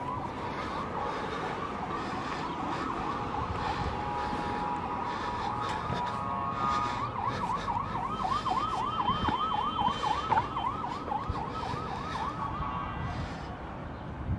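An emergency vehicle siren sounds, wailing up and down at first. About halfway through it switches to a fast yelp of about four sweeps a second, then cuts off shortly before the end.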